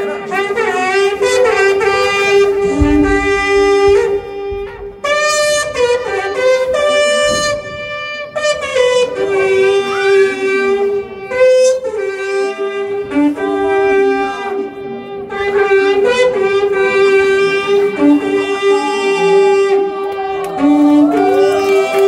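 Long wooden Slovak folk horn (trombita) played in a folk tune: held notes that shift in pitch. There is a short low thump about three seconds in.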